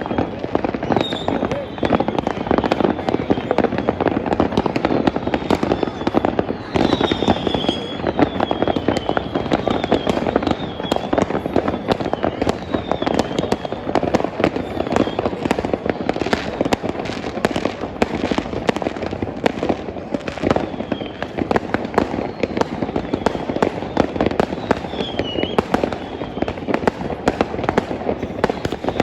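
Fireworks going off without a break: a dense run of sharp pops and crackling, with short whistling tones now and then.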